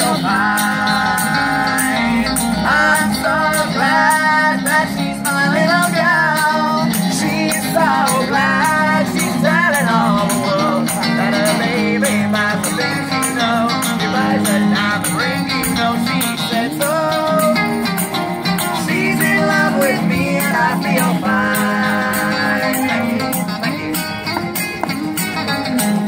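Acoustic and electric guitar playing a song together, the electric guitar through a small amp, with a tambourine keeping a steady beat; no words are sung.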